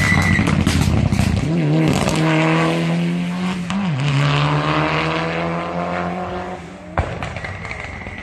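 Rally car engine running hard at high revs during a stage run, its pitch dipping briefly about a second and a half in and again about four seconds in, as at gear changes. About seven seconds in the sound breaks off with a click and goes on quieter.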